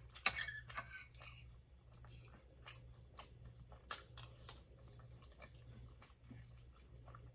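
Close-miked chewing of a spoonful of vegetable biryani: soft, irregular mouth clicks and wet chewing sounds, with a few sharper clicks near the start as the metal spoon scoops from the plate.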